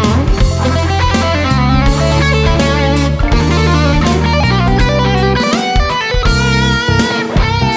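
Valley Arts electric guitar playing a fast fusion lead solo, a quick run of notes with some held, vibrato-shaken notes, over a backing track of drums and bass.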